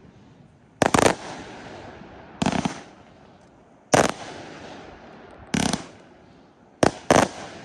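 Aerial fireworks going off: short, loud bangs about every one and a half seconds, two in quick succession near the end, each trailing off into a crackling hiss.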